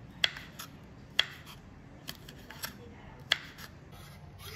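Knife slicing chilli padi on a wooden cutting board: five sharp taps of the blade on the board, roughly one a second, three of them louder than the others.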